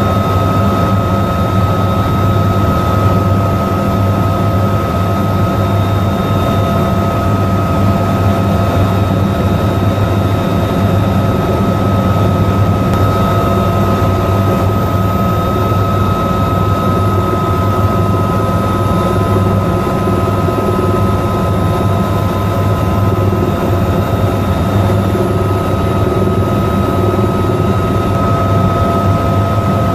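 AH-1Z Viper attack helicopter in flight, heard from inside the cockpit: the loud, steady drone of its rotor and twin turboshaft engines, with several steady whining tones over it.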